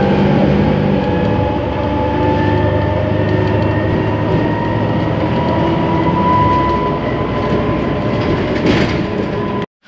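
Inside a moving city bus: steady engine and road noise with a whine that slowly rises in pitch as the bus picks up speed. The sound cuts off suddenly near the end.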